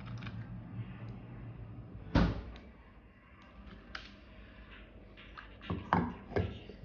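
Hard plastic knocks and clicks from handling a portable blender bottle: one sharp knock about two seconds in, then lighter taps and a quick run of clicks near the end as its plastic lid is fitted on.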